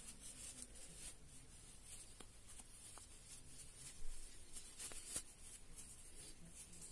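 Faint rustling and rubbing of soft plush fabric handled between the fingers as a sewn toy bear body is turned right side out, with two sharper rustles about four and five seconds in.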